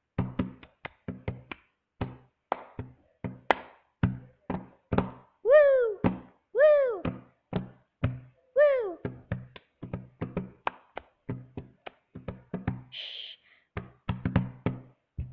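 A hand-percussion clapping routine on a tabletop: quick rhythmic palm slaps on the table ("boom"), claps and finger snaps. There are three rising-and-falling "woo!" shouts a little past the middle and a short "shh" hiss near the end.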